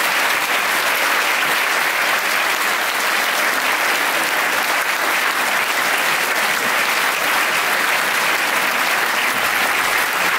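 Large audience applauding with dense, steady clapping.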